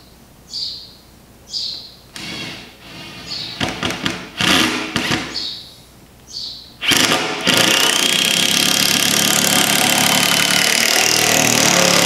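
Power drill driving a wood screw through a timber strut into the frame: a few short stop-start bursts of the motor, then about five seconds of steady running to sink the screw. Birds chirp about once a second during the first two seconds.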